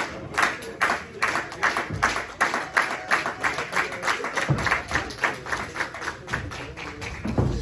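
Audience clapping in a steady rhythm, about three to four claps a second, with a few low thuds mixed in.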